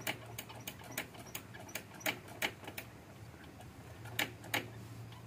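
Sharp light clicks repeating about three times a second over a low steady hum, with two pairs of louder clicks near the middle and about four seconds in.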